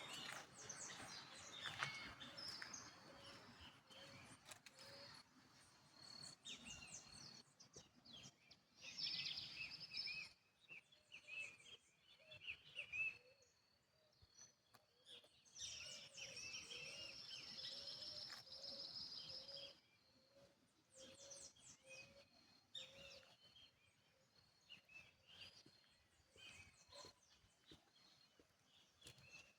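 Several wild birds singing and chirping in high twittering bursts, with a faint low note repeated steadily underneath.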